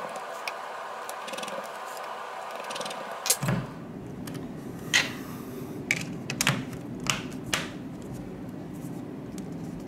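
Small sharp plastic clicks and taps, about half a dozen, as the battery is seated in a Xiaomi Redmi 2 and its plastic back cover is pressed on, the cover's clips snapping into place; a faint steady background hum before them.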